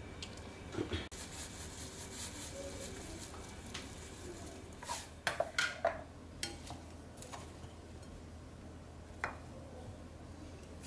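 Wooden chopsticks clicking and tapping against a glass mixing bowl and a ceramic plate as chive salad is tossed and served. The clicks are scattered, with a quick run of several about five to six seconds in.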